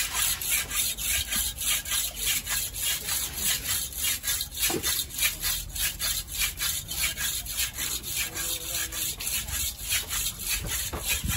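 A large curved knife sawing back and forth through the flesh and skin of a giant stingray, in a steady run of scraping strokes, about three a second.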